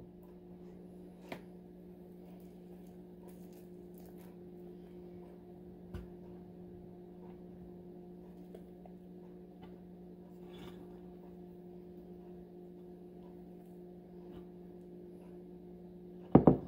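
A steady low hum with faint clicks and soft squishy scraping as a spatula works a sticky cream cheese and marshmallow cream mixture out of a metal mixing bowl. Two sharp knocks come near the end.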